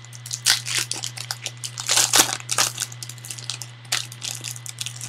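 A trading-card pack's wrapper being torn open and crinkled by hand, with irregular crackles that come thickest about two seconds in.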